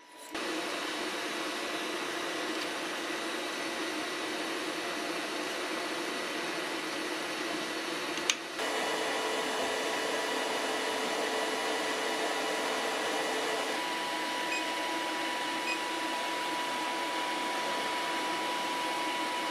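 Elegoo Neptune 4 Plus 3D printer's fans running with a steady whirr and a faint high whine while filament is loaded into the hot print head. A single click about eight seconds in, after which the whirr is slightly louder.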